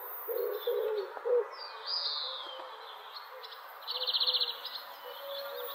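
Birds calling: a quick run of short, low calls, then higher chirps, a falling whistle about two seconds in and a brief buzzy trill about four seconds in.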